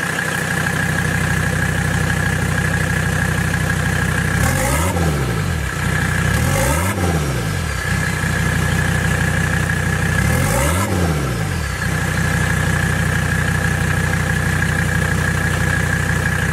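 Mercedes-Benz OM617.952 five-cylinder turbodiesel idling and revved up and back down three times in quick blips. A steady high whine runs over the engine note.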